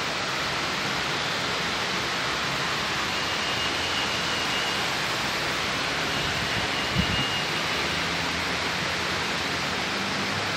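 Steady, even rushing outdoor ambience, most likely road traffic heard from an open elevated platform. A single thump comes about seven seconds in, and a faint high whistle sounds twice.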